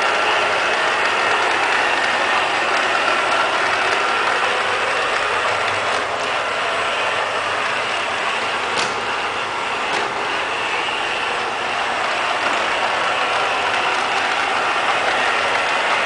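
Liectroux K6 robot vacuum cleaner running: a steady whirring of its motors with a thin, steady whine, and a few faint clicks near the middle.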